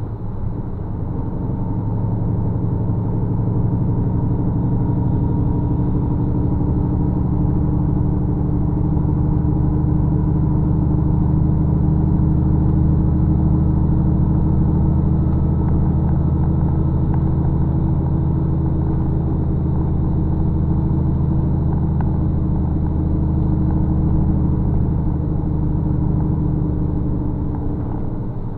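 Bus engine and road noise heard from inside the cabin while driving at speed: a steady low drone that builds a couple of seconds in and eases off near the end.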